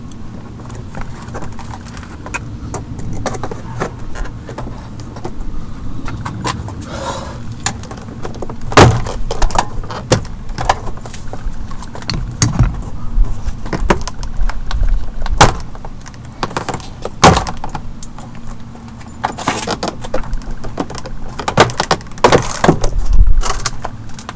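Hands working the plastic inner door panel of an E46 BMW 330i off the door: irregular plastic clicks, knocks and rattles, with several sharp knocks, over a faint steady hum.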